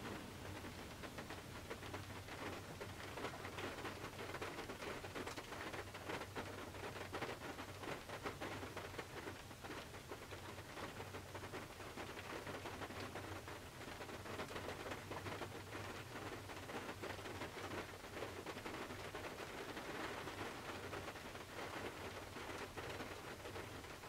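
Rain pattering on the roof and windows of a Toyota 4Runner, heard from inside the vehicle: a steady hiss full of small drop ticks. A faint low hum runs steadily underneath.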